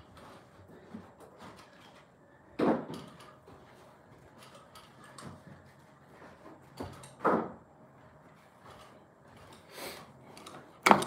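Three short knocks a few seconds apart, with faint rustling between.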